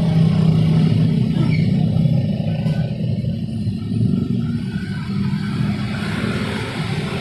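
City street traffic: the engines of nearby vehicles running in a low rumble, loudest over the first couple of seconds and easing off after.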